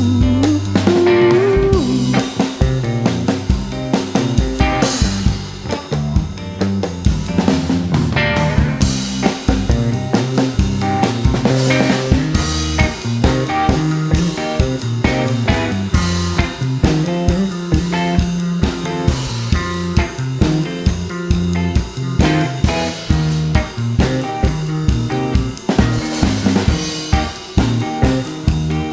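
A rock band playing an instrumental passage: electric guitar and bass over a drum kit beating a steady rhythm.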